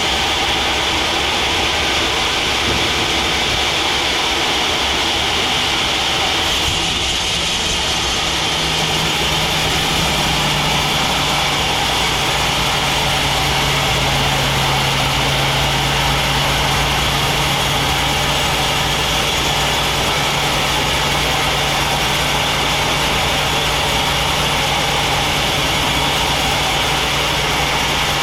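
Sawmill bandsaw machinery running steadily, with a constant high whine; about eight seconds in a low steady hum joins and holds.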